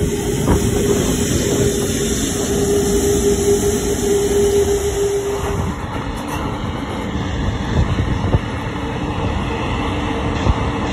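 Airbus A380 jet engines at taxi power, a loud rumble with a steady hum as the aircraft passes close by. About six seconds in the hum stops and a slightly quieter, more distant engine rumble carries on.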